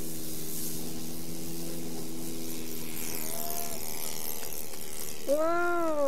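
Model airplane engine, a Magnum .30 four-stroke glow engine in an Eaglet 50, running steadily at high revs and fading as the plane climbs away, with a high swishing that sweeps downward in pitch as it passes overhead. About five seconds in, a loud drawn-out call rises and then falls in pitch.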